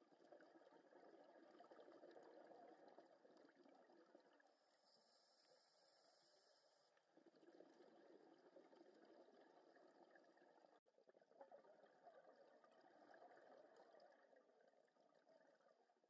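A scuba diver's exhaled bubbles from the regulator, heard faintly underwater: three spells of bubbling a few seconds long, with short pauses between them that follow the diver's breathing.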